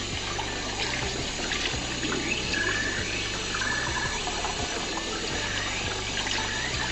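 Kitchen tap running steadily, its stream splashing into a saucepan of water and then onto a water-covered plate in the sink.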